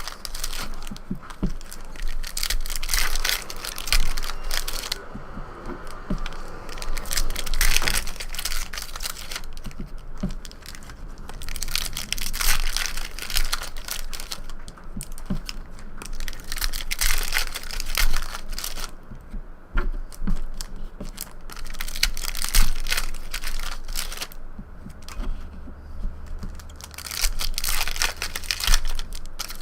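Trading card pack wrappers being torn open and crinkled, in repeated irregular bursts of rustling with short pauses between them.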